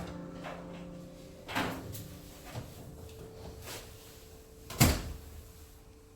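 A few scattered knocks and clicks, the loudest about five seconds in, over a faint steady hum.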